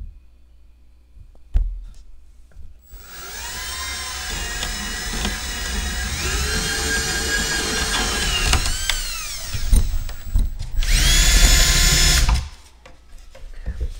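Power drill boring an axle-sized hole through the plastic side of a milk crate. About three seconds in the motor starts and runs for some seven seconds, its whine wavering and dipping as the bit bites. After a short pause with a couple of knocks, it runs again louder and steadier for about two seconds and stops.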